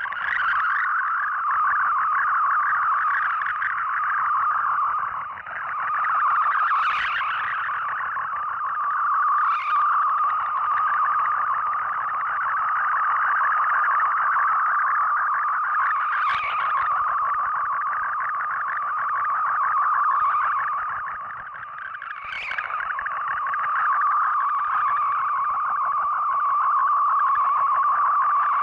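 Shortwave digital data signal heard through an SDR receiver: a steady warbling stream of rapidly stepping tones, the multi-tone MFSK mode that Shortwave Radiogram sends its text and images in, for decoding in Fldigi. A few brief crackles cut through it, and it fades down twice.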